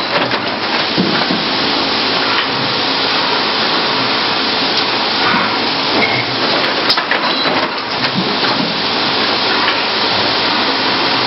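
Thermoforming machine running: a steady, dense mechanical clatter with scattered knocks.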